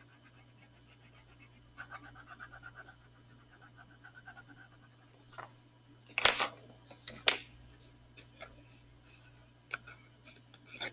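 Wax crayon scratching across a paper plate in quick short strokes while a small star is coloured in. About six seconds in comes a sharp clack, then a few lighter knocks, as crayons are put down on the table and picked up.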